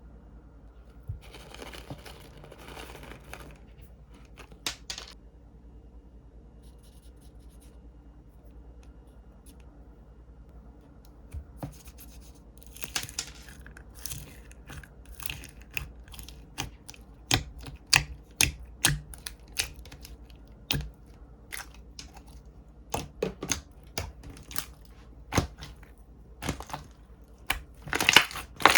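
Slime being handled and pressed: a short soft crinkly rustle about a second in, then from about eleven seconds in a run of sharp, crisp clicks and pops that comes thicker toward the end.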